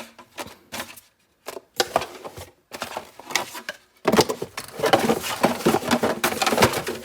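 Unboxed doorbell accessories and their packaging being handled and put back into the box: scattered clicks and brief rustles at first, then a denser, louder run of rustling and clicking in the second half.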